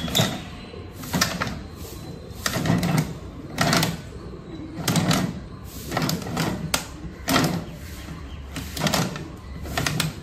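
Hand-operated plastic-bottle compacting mechanism on a sheet-metal waste trolley being worked stroke by stroke: repeated clanks and crunches, about one a second, as plastic bottles are pressed flat.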